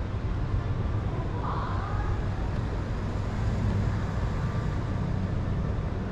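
Road traffic noise: a steady low rumble of passing cars, with a brief higher-pitched sound about a second and a half in.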